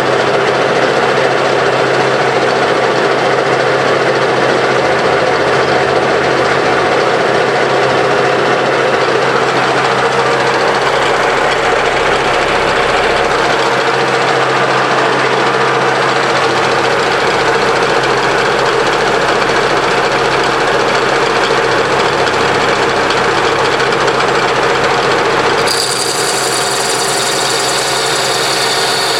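Metal lathe running and turning steel: a steady machine hum under continuous cutting noise. Near the end the sound changes abruptly, and a high steady whine joins in.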